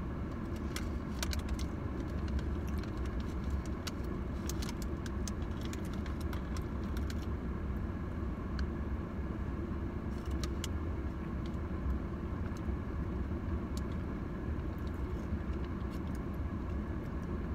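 Paper bag crinkling and rustling in short spells of crackles as hands pick food out of it, over a steady low car hum.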